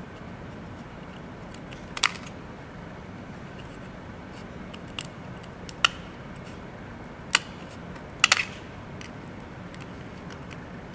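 Large scissors snipping through the shell of a narrow-clawed crayfish (Astacus leptodactylus), cutting forward along the carapace. About six sharp, irregularly spaced snips, the last two in quick succession.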